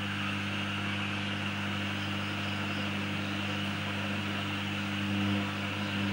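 Steady electrical hum with a hiss above it, from a homemade FM transmitter running on mains power.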